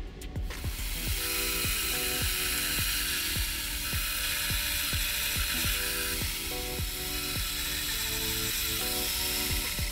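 A twist drill turning in a machine spindle and drilling through aluminium plate: a steady whir that comes in about half a second in and holds. Background music with plucked notes plays throughout.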